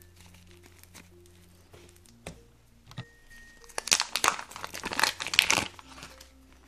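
Thin clear plastic packet crinkling loudly for about two seconds, starting a little before the middle, as it is torn open and pulled off a block of pink modelling clay.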